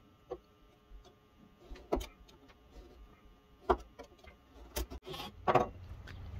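A utility knife drawn along a steel rule, scoring a soft vinyl sheet in a series of short, separate strokes. Near the end a steady low hum comes in.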